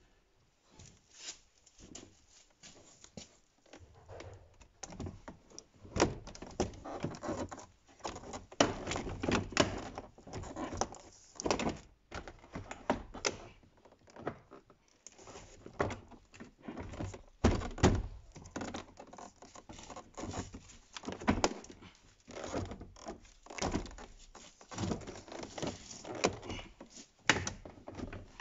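VW Passat B6 interior door trim panel being pressed and knocked into place by hand: irregular thuds, knocks and clicks of plastic against the door.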